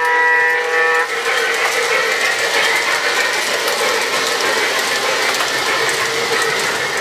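Model steam locomotive's onboard QSI QS2 Plus sound system sounding its air horn, a steady chord that cuts off about a second in. Then the steady rolling clatter of the model passenger cars' wheels on the track as the train passes at speed.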